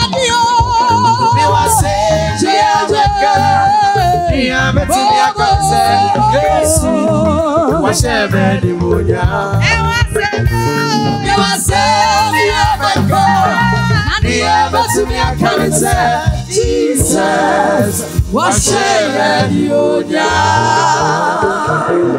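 Two women singing together into handheld microphones, with wavering held notes, over a backing track with a steady beat.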